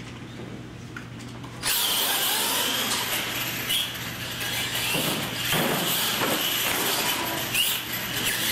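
R/C monster trucks launching and running flat out, their electric motors and gears giving a loud buzzing whine that starts suddenly about two seconds in.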